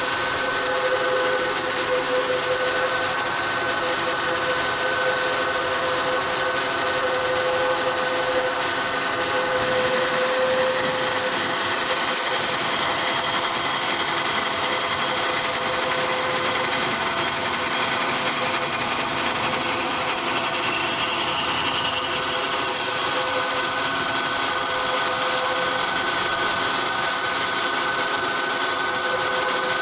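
Metal-spinning lathe running while forming an automotive bushing: a steady machine hum with a held whine. About ten seconds in, a high hissing sound sets in suddenly and carries on under it.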